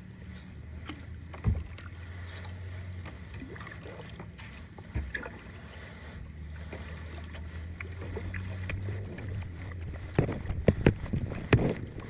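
Kayak paddling: paddle splashes and knocks on the kayak, a few scattered and then coming thick and fast in the last two seconds, over a steady low hum.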